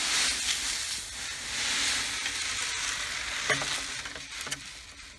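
Dumor chicken feed crumble pouring out of a plastic bucket onto snow: a steady rushing hiss of falling pellets. It tapers off after about three seconds, and a few light knocks follow near the end.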